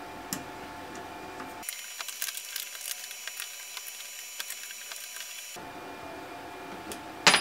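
Faint small clicks and ticks of an Allen key turning the set screws that clamp the connector brackets joining two aluminium track-saw rails.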